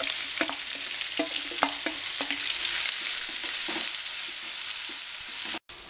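Sliced onion frying in hot vegetable oil in a frying pan: a steady sizzling hiss with scattered crackles. The sound cuts out for a moment near the end.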